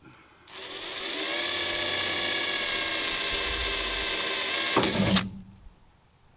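Small cordless drill drilling a pilot hole with a little bit through the truck's body panel. The motor spins up with a rising whine, runs steadily for about four seconds, gives a short louder burst and then stops.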